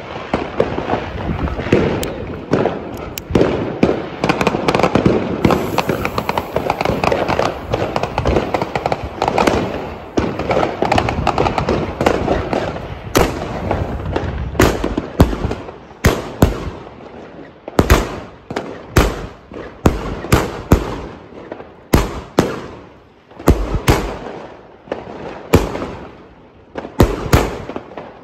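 Fireworks going off. First comes a dense, unbroken crackling and banging, then from about halfway a battery fires separate shots one after another, roughly one a second, sending up rising comets with crackling stars.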